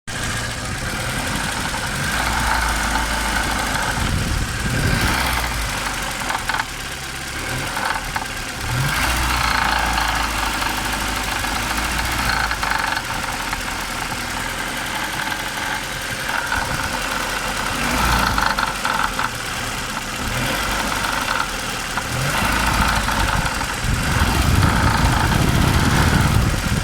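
Audi 80's 2.0-litre ABT inline-four petrol engine running with a knock, mostly at idle and revved briefly a few times, louder for a stretch near the end.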